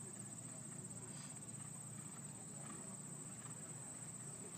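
Steady high-pitched insect chorus with a fine, even pulse, over a faint low rumble.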